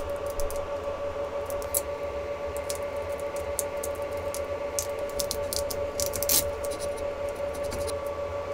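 Thin metal spatula scraping and clicking against a 3D-printed PLA part and the taped print bed as it is worked underneath to pry the part loose, with one louder click about six seconds in. A steady hum runs underneath.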